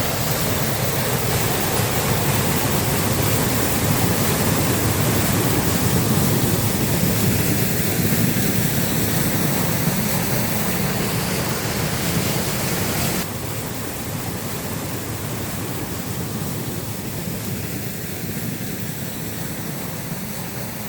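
Water rushing steadily through a traditional water mill, a dense low rush without rhythm. About thirteen seconds in it suddenly becomes quieter and duller.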